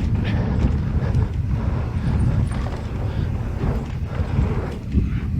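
Mountain bike descending a dirt trail at speed: low wind rumble on the camera microphone, with the tyres rolling and the bike knocking and rattling over bumps in quick, uneven succession.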